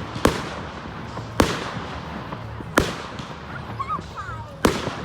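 Fireworks exploding: four sharp bangs spaced about one to one and a half seconds apart, each trailing off in echo.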